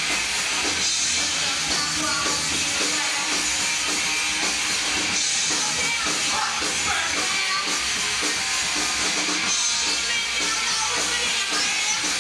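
Glam rock band playing live: electric guitars and drums at a steady loud level, with a bright, constant cymbal wash on top.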